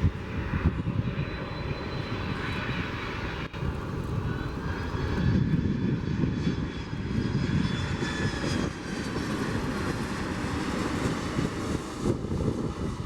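Jet airliner engines running: a continuous rumble with a thin whine that slowly slides up and down in pitch.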